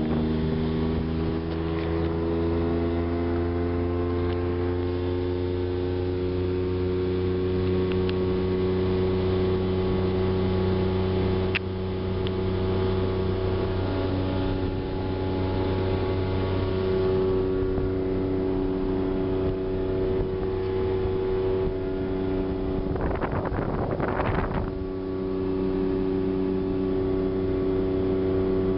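1979 Volvo Penta 400 outboard motor running under way, its pitch rising in the first second or two as it is throttled up, then holding steady. A brief rushing noise comes about 23 seconds in.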